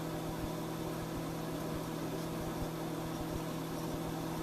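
Microwave oven running with light bulbs inside, a steady even hum.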